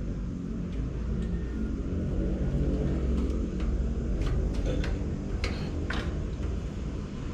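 Sharp clicks and taps of hand work on a bicycle hub being regreased, about ten of them scattered over the first six seconds, over a steady low background rumble.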